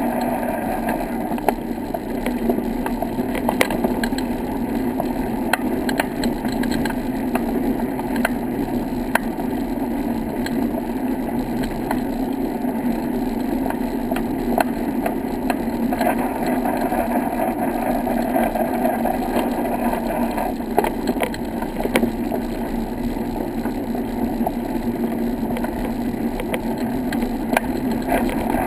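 Steady rolling and rattling noise from riding along a paved path, with frequent light clicks and knocks throughout.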